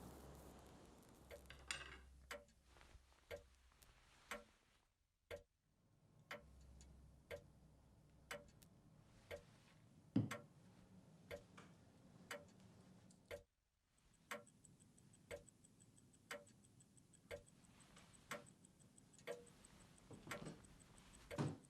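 Clock ticking faintly, about one tick a second, with one louder tick about halfway through. A faster, fainter high-pitched ticking, like a watch, joins about two thirds of the way in.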